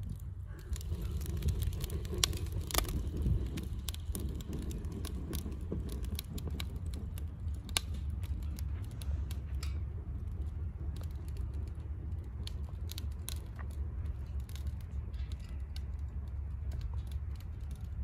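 Irregular small clicks and crackles over a steady low wind rumble on the microphone. Raw liver is being handled and pushed onto a metal skewer, and then, from about ten seconds in, the coals of a charcoal grill are being fanned.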